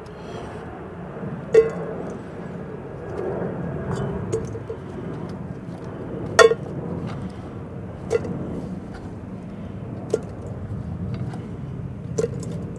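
Halved Brussels sprouts dropped into a stainless steel mixing bowl, each landing with a short clink. About half a dozen clinks come a second or two apart, the loudest about six seconds in with a brief metallic ring, over a steady low background rumble.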